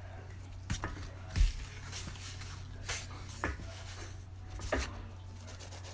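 Glitter slime being pressed and squished by hand: a scattering of short soft clicks and pops, with one louder low thump about a second and a half in. A steady low hum sits underneath.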